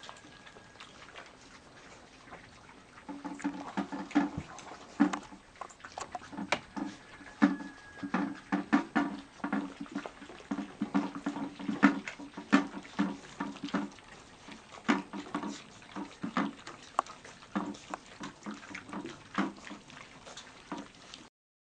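A litter of puppies lapping and chewing food from bowls. Many small wet clicks and slurps come irregularly throughout, busiest from about three seconds in.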